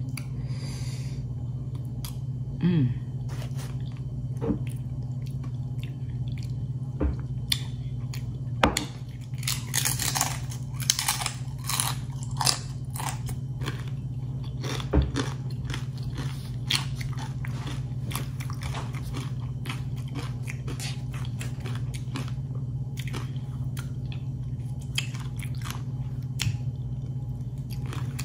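A person biting and chewing crunchy fried tortilla chips with cheese dip. The crisp crunches come thickest from about nine to thirteen seconds in and are scattered elsewhere, over a steady low hum.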